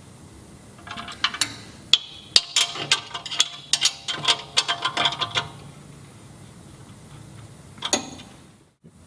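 Steel spanner clicking and clinking on the nylock nut and the steel control arm guard as the countersunk bolts get their final tightening: a run of sharp metallic clicks lasting about four seconds, then one more click near the end.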